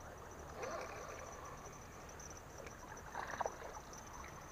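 Faint tropical riverbank ambience with a steady, thin, high insect drone. A brief soft handling rustle with a few clicks comes about three seconds in.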